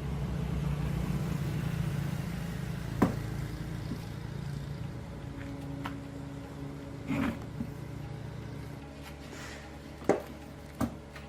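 A small electric motor starts humming, then fades over several seconds. A few sharp knocks and clicks come near the middle and near the end.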